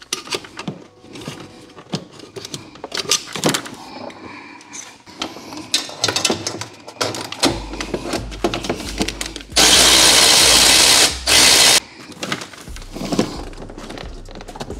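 Hand-tool work on a hose clamp in an engine bay: irregular clicks, knocks and metal clatter. About ten seconds in a loud hiss lasts about a second and a half, followed by a second, shorter one.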